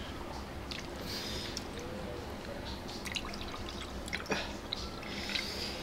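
Orange drink poured from a plastic bag into a drinking glass, trickling and dripping, with one sharp tap a little after four seconds.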